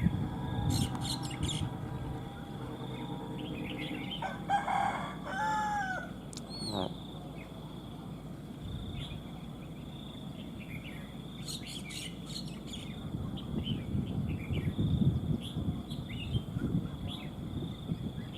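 Red-whiskered bulbuls chirping and calling in short scattered bursts, with a rooster crowing once about five seconds in, over a steady high-pitched drone.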